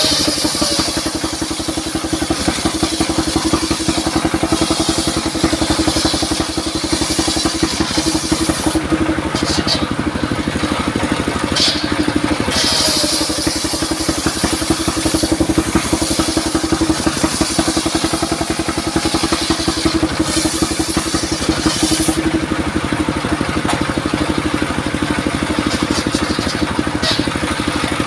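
Portable circular sawmill driven by a 28-horsepower diesel engine, running steadily under load while the blade rips planks from a log. A higher cutting noise comes and goes every few seconds as wood is fed through the blade.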